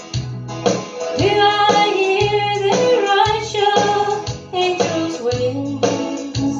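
A woman singing a country foxtrot into a handheld microphone over a backing track with a bass line and a steady beat.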